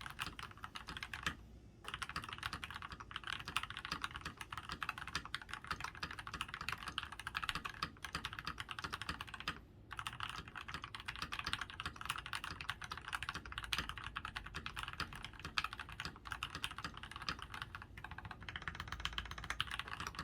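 Fast typing on a RAMA Kara custom mechanical keyboard with lubed and filmed Milky Top Tealios linear switches, an aluminium plate and GMK keycaps. It is a dense, continuous run of keystrokes that breaks off briefly twice.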